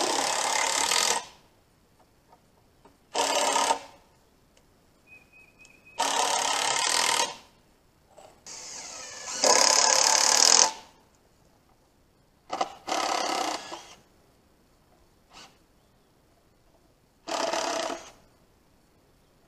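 Cordless power driver sinking screws into wooden boards to join the corners of raised garden beds. It runs in repeated short bursts of about one to two seconds, around seven in all, with one longer run near the middle.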